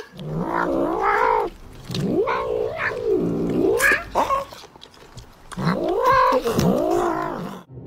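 Tabby cat yowling: a run of long, drawn-out meows that rise and fall in pitch, with a short pause about halfway, as it tries to get at a chicken drumstick being eaten.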